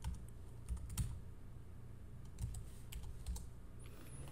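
Faint, irregular keystrokes on a computer keyboard, typing a password.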